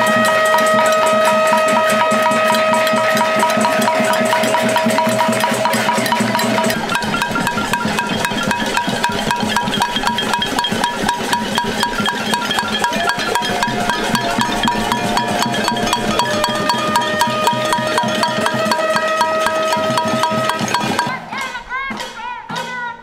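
A crowd banging on pots and pans: a dense, continuous metallic clatter with ringing tones from the struck metal. It thins out and gets quieter near the end.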